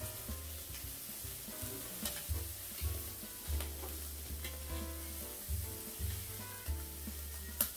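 Fish sizzling over charcoal on a kettle grill, with metal tongs and a spatula clicking and scraping against the grill grate as the fish is turned; one sharp click near the end. Background music with a steady beat plays underneath.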